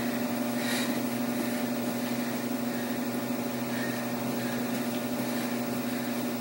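Steady electrical or mechanical hum with a low drone and no other marked events: room tone.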